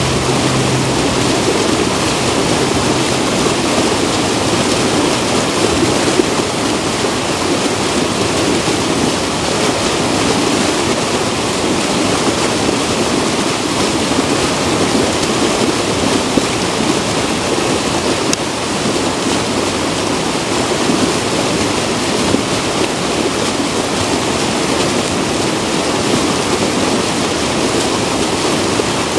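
Steady rushing noise of a snowboard run in bad weather: wind on the microphone and the board sliding over snow.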